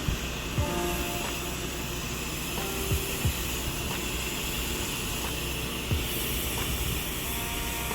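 Pressure washer spraying: a steady hiss of water from the wand, with a few brief low thumps.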